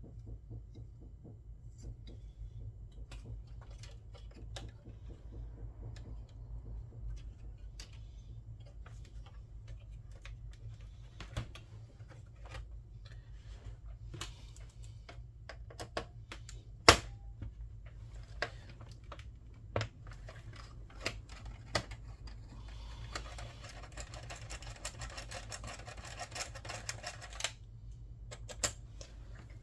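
Scattered small clicks and taps from console parts and tools being handled, with one sharp click about halfway through and a few seconds of rapid clicking near the end, over a steady low electrical hum.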